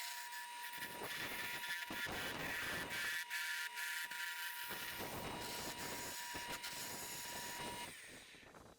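Wood lathe running with a steady motor whine while a turning tool cuts a mahogany handle in scraping spells, with two brief pauses in the cutting. The whine stops near the end.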